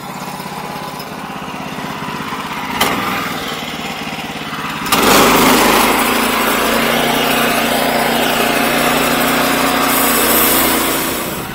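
Sawmill engine running steadily, then about five seconds in the blade goes into the timber and a loud, steady sawing noise takes over, easing off near the end: sawing a tenon on a timber stair tread. A sharp click is heard a little before the cut starts.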